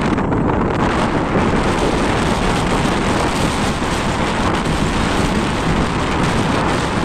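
Steady wind buffeting the microphone, with the wash of waves on open sea.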